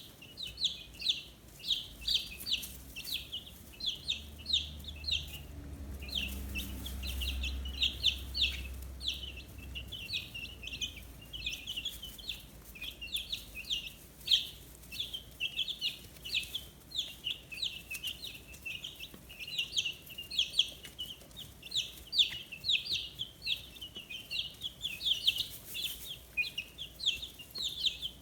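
A group of fifteen-day-old chicks peeping continuously, with many short, high, downward-sliding peeps several times a second. A faint low rumble sits underneath for several seconds, starting about four seconds in.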